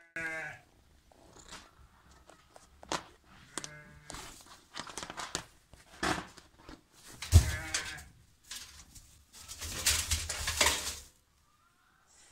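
Animals scrabbling and knocking about inside a metal barrel, with scattered knocks and the loudest thud about halfway through, plus a few short drawn-out animal cries. Near the end comes a longer burst of scrabbling, after which it goes quiet.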